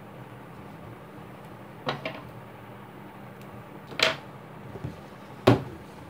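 Handling knocks as the camera and plastic-pipe embroidery frame are moved: three sharp knocks about a second and a half to two seconds apart, the last the loudest, over a steady low hum.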